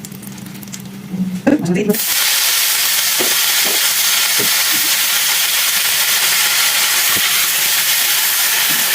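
Food going into hot oil in a pan: a steady sizzle that starts suddenly about two seconds in, with occasional small pops.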